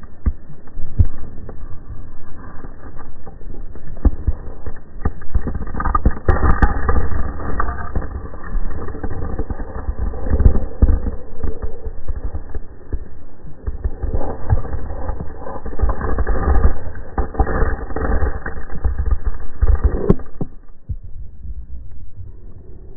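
Muffled low rumbling with irregular knocks, heard through an action camera's waterproof housing under lake ice. It drops away sharply about twenty seconds in.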